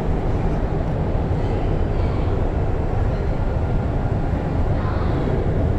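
Loud, steady rumbling noise of a moving vehicle.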